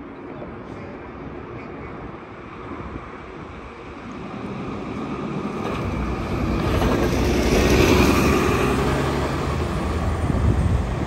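Gillig transit bus approaching and driving past close by, its engine and tyre noise growing steadily louder to a peak about eight seconds in as it turns through the intersection.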